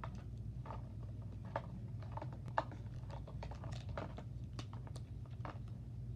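Scissors snipping open a small plastic packet, with scattered clicks and crinkles of the plastic being handled, over a low steady hum.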